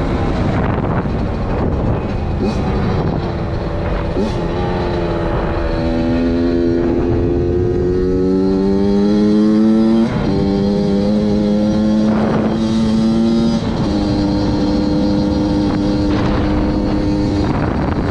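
Suzuki RM85 single-cylinder two-stroke engine running under load as the bike is ridden. Its pitch climbs steadily for several seconds, then holds high, with brief sudden drops about ten and thirteen seconds in, like gear changes.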